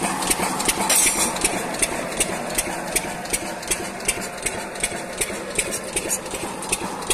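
Mercury stationary diesel engine running at high speed and belt-driving a water pump, with a steady beat of sharp knocks, about three a second.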